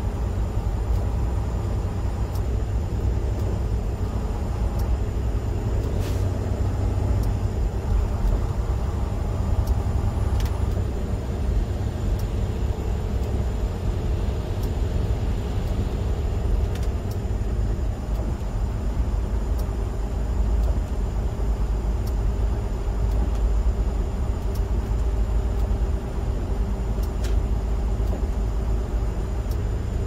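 Tractor-trailer truck driving at highway speed, heard from inside the cab: a steady low engine and road rumble, with a few faint clicks.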